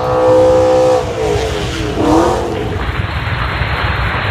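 Car engine held at high revs for about a second, then falling in pitch, followed by a steady noisy rush.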